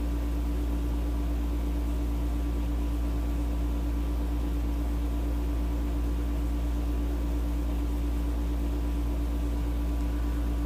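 A steady machine hum: a strong low drone with a few fainter steady tones above it, unchanging throughout.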